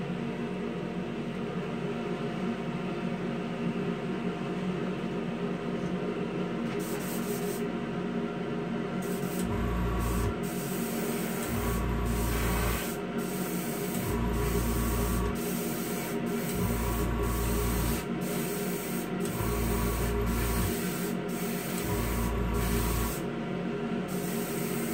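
Spray booth fan and airbrush compressor running with a steady hum. From about ten seconds in, an airbrush sprays clear coat in short passes: a hiss of about a second, repeated roughly every two to two and a half seconds, six or seven times.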